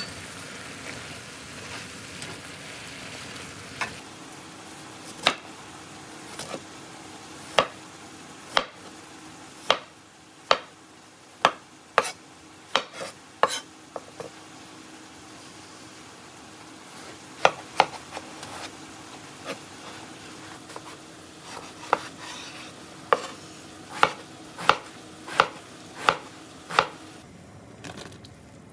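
A frying pan sizzles briefly, then a chef's knife cuts through a peeled daikon and strikes the cutting board in sharp knocks, roughly one a second, in two runs.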